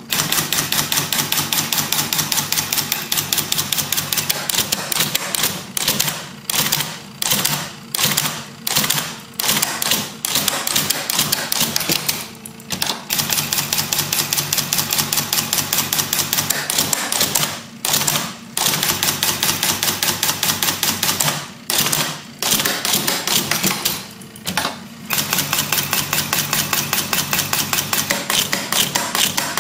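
Solenoid-driven IBM Selectric II electric typewriter printing on its own: a rapid, even clatter of solenoids snapping and the typeball striking the paper, broken by short pauses now and then.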